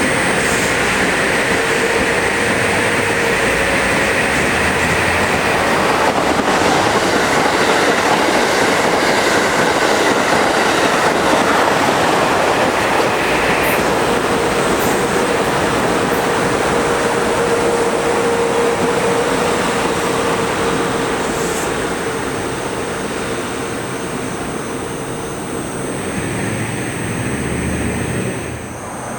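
Passenger train passing close by at speed: a loud, steady rush of wheels on rail with a steady whine. It comes up abruptly at the start and eases off near the end.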